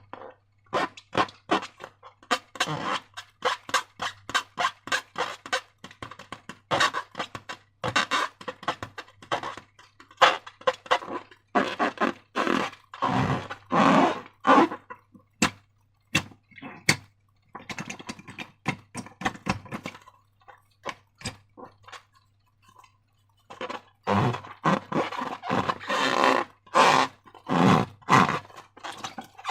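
Slime being squished and worked by hand: a dense, irregular run of wet clicks and squelches, with a short lull about two-thirds of the way through, over a faint steady low hum.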